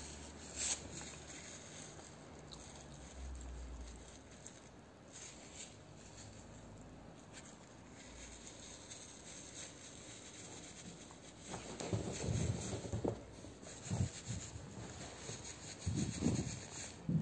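A puppy rubbing and nuzzling against the phone and couch fabric, then, in the last few seconds, a series of short low vocal sounds from the irritated puppy.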